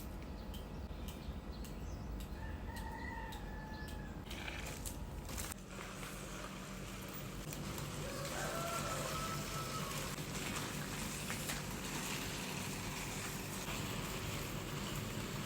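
Pressure washer starting up about five seconds in and then running steadily with the hiss of its water spray. Over it a rooster crows twice, about three seconds in and again about eight seconds in.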